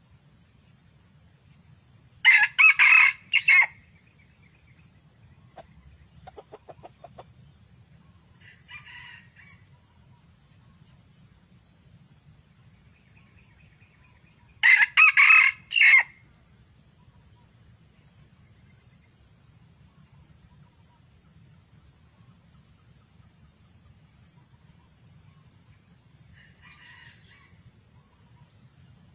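Junglefowl crowing: two loud, short crows about twelve seconds apart, with fainter calls between them and near the end. A steady high-pitched whine runs underneath.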